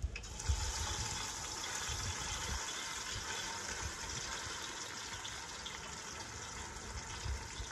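Fish sizzling as it fries in hot oil: the sizzle starts suddenly as the fish is lowered into the oil and keeps on steadily, easing slightly later.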